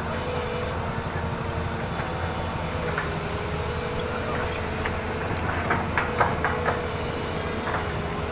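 SANY SY220C-9 hydraulic excavator's diesel engine running steadily under work, with a steady high tone over the low drone. A few sharp clanks come close together about six seconds in.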